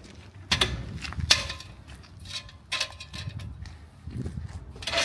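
A few sharp metallic knocks and clanks, about four, over a low rumble, as the crashed motorcycle is held and moved by hand.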